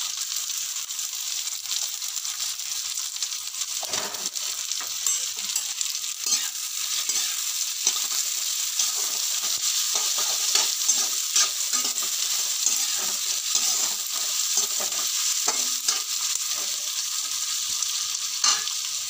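Chopped onions and ginger sizzling in hot oil in a kadhai, stirred with a metal spatula that scrapes and knocks irregularly against the pan.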